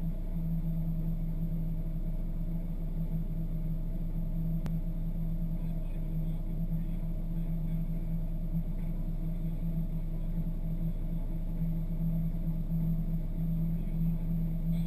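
Volkswagen Golf R rally car's turbocharged four-cylinder engine running steadily at one constant pitch, with a single click about four and a half seconds in.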